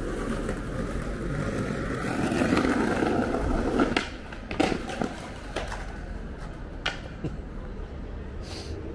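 Skateboard wheels rolling over brick paving, building to a loud rumble that stops about four seconds in. Then come several sharp clacks of the board hitting the bricks.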